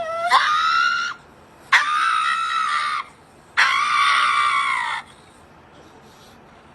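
Three long, loud, high-pitched screams, each held steady for about a second and a quarter with short gaps between them. The first slides up in pitch as it starts.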